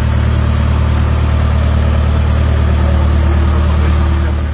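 Tandem double-drum road roller's diesel engine running steadily at close range as the roller works fresh asphalt, a loud, even low drone.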